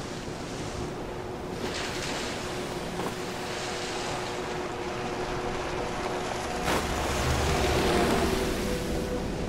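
Ocean surf and whitewater rushing, with wind on the microphone and a jet ski's engine running as it tows the surfer into a huge wave. A sudden sharp crack about two-thirds of the way in, and the rush grows louder toward the end.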